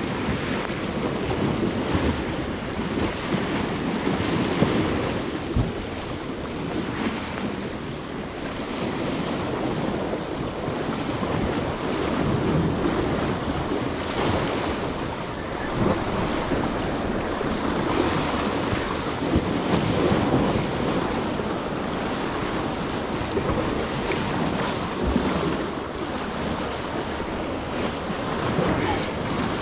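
Rough surf washing and breaking, rising and falling in loudness every few seconds, with wind buffeting the microphone.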